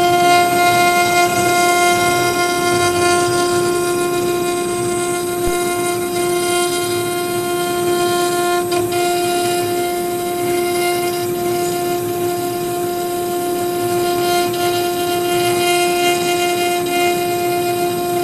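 CNC router spindle running steadily at high speed, a constant whine with overtones, as its small cutter carves a wooden cylinder turned on the rotary axis, with a hiss of cutting under it.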